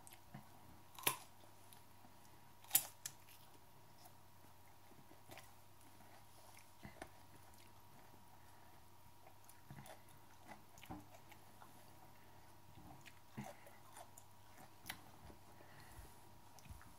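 A person chewing hot chili peppers: faint mouth sounds with scattered short crunches and clicks, the two loudest about one and three seconds in.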